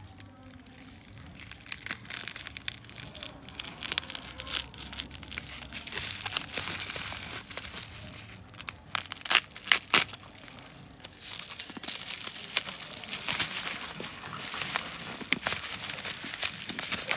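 Black plastic courier mailer bag crinkling and crackling as it is handled and torn open around a boxed item.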